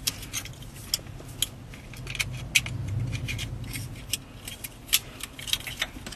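Irregular small sharp clicks and clinks of plastic wiring connectors and metal terminal pins being handled, as the pins are moved out of a car radio connector into a radio interface harness. A low hum swells briefly in the middle.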